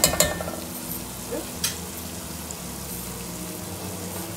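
Jackfruit masala sizzling in oil in a stainless steel pan, with a metal spatula scraping and stirring against the pan at the start and once more about a second and a half in. The masala is fried until the oil has separated.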